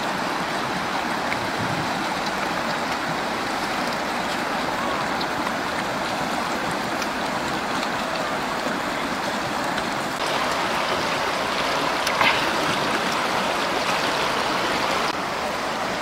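Steady rush of running water, a little louder from about ten seconds in until near the end, with a brief louder noise about twelve seconds in.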